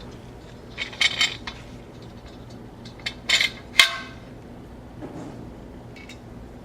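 Metal pole sections clinking and clanking together as they are fitted, in two short bursts of sharp metallic hits with brief ringing, about a second in and again around three and a half seconds in.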